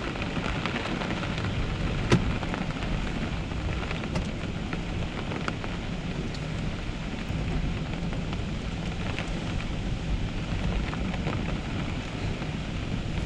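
Storm rain falling steadily, with a constant low rumble of wind, scattered small ticks of drops, and one sharp tap about two seconds in.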